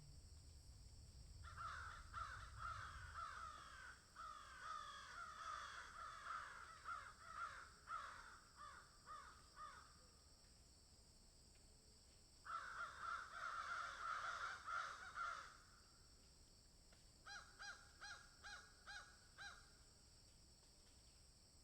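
Birds calling faintly in two long stretches of rapid, chattering, falling calls, then a quick series of about eight short, separate notes near the end.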